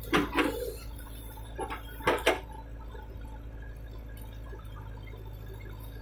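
JCB 3DX backhoe loader's diesel engine running with a steady low hum, with short knocks just after the start and again about two seconds in.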